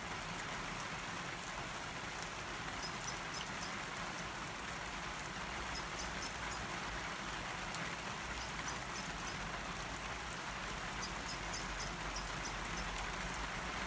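Heavy rain falling steadily on a garden's lawn, shrubs and wet paving: a constant, even hiss of raindrops.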